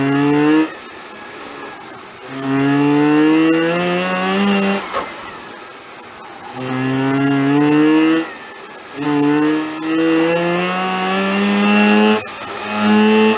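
Mazda RX-8's twin-rotor Wankel rotary engine, heard from inside the cabin, pulling under throttle in about six separate bursts, each note rising in pitch. Between the pulls it drops back to a quieter hiss.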